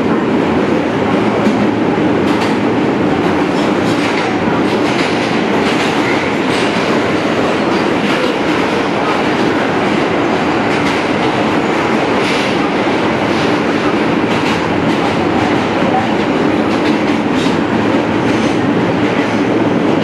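R-160 subway car running steadily through a tunnel, heard from inside the car: an even rumble of wheels on rail, with scattered clicks as the wheels pass over the track.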